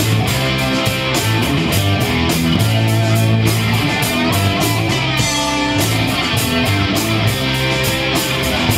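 Live rock band playing: electric guitars and bass guitar over a drum kit keeping a steady beat of about four strokes a second.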